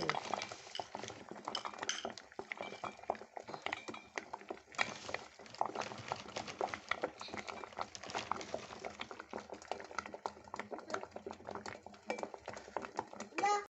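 Spoon clinking and scraping against a vessel in many quick, irregular strokes, as when stirring or crushing something in a bowl.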